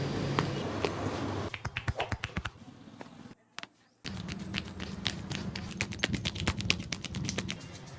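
Barber's percussive massage: quick, sharp hand slaps and taps on a customer's body, several a second, over a low steady hum, broken off for about half a second a little over three seconds in.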